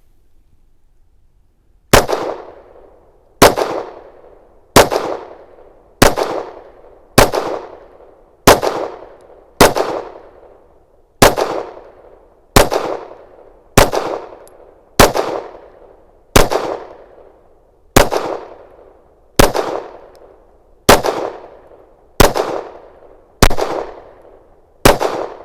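Canik METE SFT 9mm pistol fired in slow, steady succession: eighteen single shots about one every second and a quarter, starting about two seconds in. Each shot is a sharp crack with a short ringing tail, and the last one empties the magazine.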